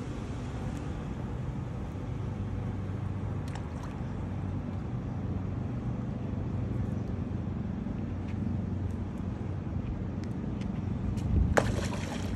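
An engine runs steadily with a low hum. Near the end, a tarpon strikes a fish carcass at the water's surface with one short, loud splash.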